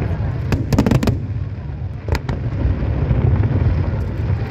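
Aerial fireworks shells bursting: a continuous low booming rumble with a quick cluster of sharp bangs about half a second to a second in and a couple more around two seconds in.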